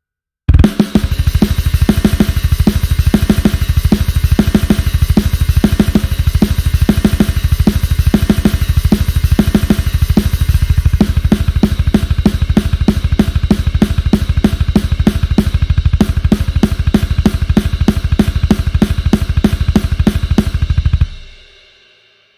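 Sampled acoustic drum kit from the Drum Daddy Kontakt library playing a groove: a fast, even run of bass drum strokes under snare, hi-hat and cymbals. It starts half a second in and stops about a second before the end, the cymbals ringing out.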